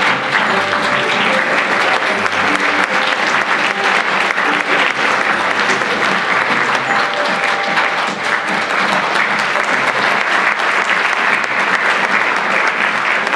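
Audience applauding steadily for the cast's curtain call, a dense unbroken clapping, with faint music beneath it.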